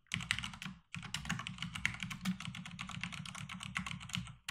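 Fast typing on a computer keyboard: a dense run of key clicks, broken by a brief pause about a second in.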